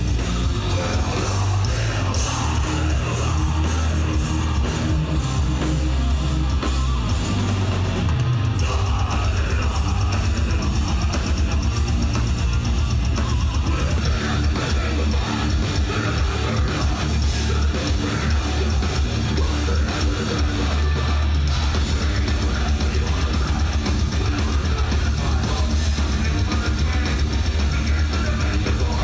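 A metal band playing live: distorted electric guitars, bass and drum kit, loud and continuous, heard from within the crowd.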